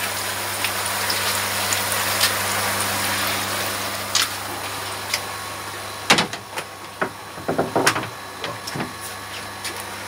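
Aerated water bubbling over moving-bed filter media in an open koi filter chamber, a steady rushing hiss over a low pump hum. About six seconds in, a plastic drum filter lid is pushed back into place with several knocks and clunks, and the water sound fades.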